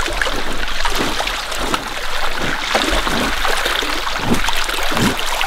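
Shallow, gravel-bottomed stream flowing in a lively current, with irregular splashes as it rushes around a wading boot standing in it.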